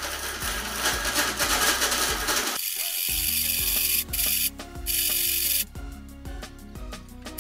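Spinning reel being cranked to wind braided fishing line onto its spool, the line running off a spool stand: a steady rubbing whir that breaks off briefly and then stops suddenly a little over halfway through. Background music with a steady beat plays throughout.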